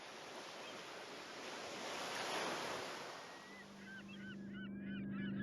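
Sea waves washing in, swelling about two seconds in and then ebbing away. Over the last couple of seconds, birds call in many short chirps above a steady low tone.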